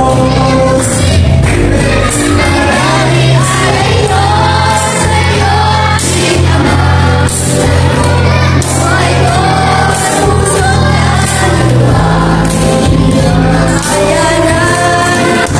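Christian worship song playing loudly: voices singing over a band with steady bass and a regular drum beat.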